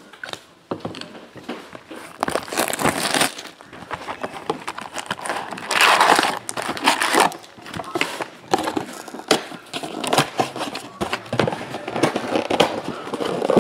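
Panini Contenders Football hobby box being opened by hand and its foil-wrapped card packs lifted out and stacked: irregular crinkling and rustling of the packs against the cardboard, with a louder crinkly burst about six seconds in.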